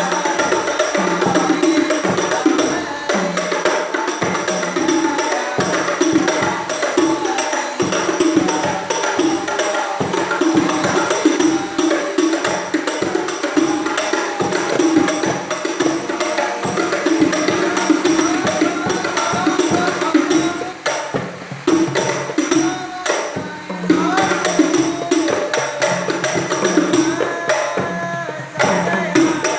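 Terbangan (rebana frame drums with jingles) played in a dense, steady rhythm, with a couple of brief drops in the playing in the last third.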